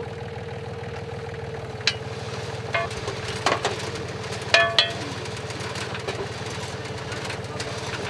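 Small tractor engine running steadily, driving a potato harvester's rotating wire sieve drum, with a few sharp knocks and clinks from the machinery between about two and five seconds in.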